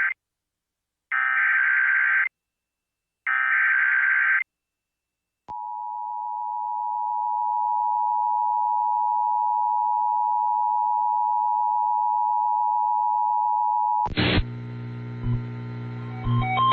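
Emergency Alert System alert tones. The end of one SAME header data burst is followed by two more one-second bursts of harsh digital warbling, about a second apart. After a click, the steady two-tone EAS attention signal (853 and 960 Hz) sounds for about eight seconds. About two seconds before the end, other audio cuts in abruptly with a low drone and electronic tones.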